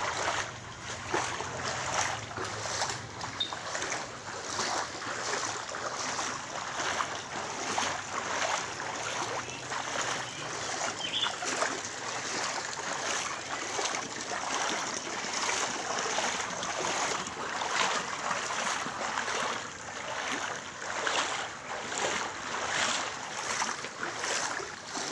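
Floodwater sloshing and splashing as someone wades through it, in an uneven walking rhythm of repeated surges.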